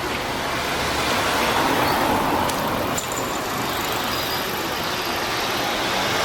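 Road traffic: cars passing through the crossing, a steady rush of tyre and engine noise that swells and fades, with a light click about three seconds in.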